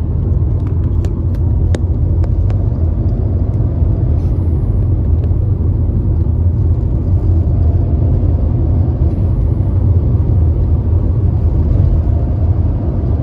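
Mercedes-Benz W124's M104 straight-six engine and road noise heard from inside the cabin while driving, a steady low rumble. A few light clicks in the first couple of seconds.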